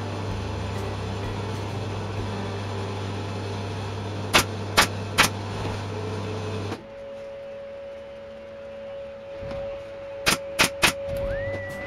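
Pneumatic staple gun firing staples into a wooden canvas frame: three quick sharp shots, then about six seconds later another three, over a steady mechanical hum that cuts off abruptly between the two sets.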